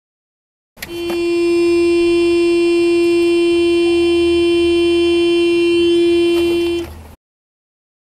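Car horn sounding in one long, steady blast of about six seconds, heard from inside the car's cabin. It is set off by a dog pressing on the steering wheel.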